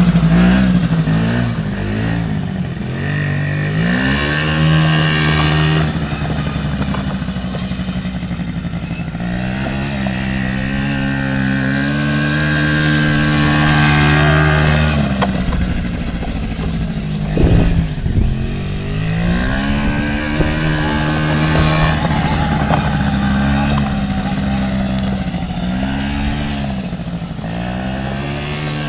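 Small youth ATV engine running and revving up and down again and again as the quad is ridden around. There is one brief thump a little past halfway.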